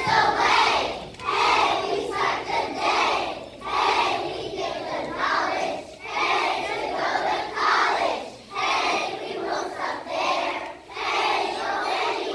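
A large group of kindergarten children singing loudly together, in short phrases with brief breaks between them.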